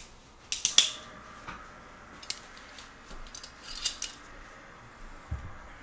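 Sharp clicks and clinks of small hard objects being handled, coming in scattered clusters, with a short dull thump near the end.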